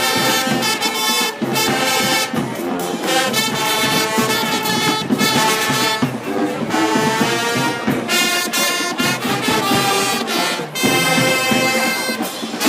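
High school marching band playing, its brass section holding loud sustained chords over drums, with short breaks between phrases.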